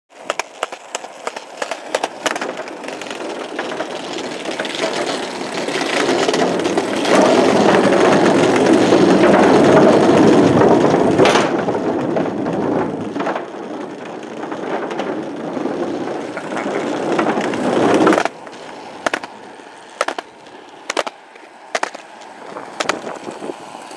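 Skateboard wheels rolling over pavement, a continuous rolling rumble broken by sharp clicks as the wheels cross seams. It is loudest in the middle, and about 18 seconds in it cuts off suddenly, leaving a quieter background with a few scattered clicks.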